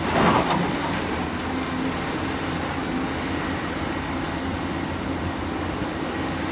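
Volvo EC350 crawler excavator's diesel engine running steadily as the machine digs. Right at the start there is a short, loud crunch as the bucket bites into the dirt and rock of the cut.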